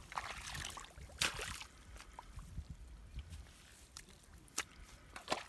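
Bare hands digging into wet mud in shallow water, with irregular squelches and small splashes as clumps of mud are scooped and pulled up; the loudest comes about a second in.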